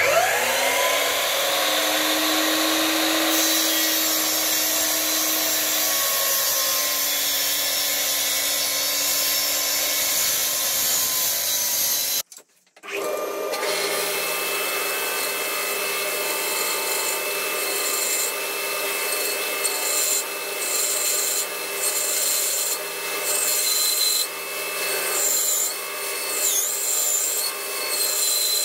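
Sliding mitre saw motor spinning up with a rising whine and then running steadily. After a cut, a band saw runs and cuts a curve through a thick wooden board, the sound shifting unevenly as the wood is fed.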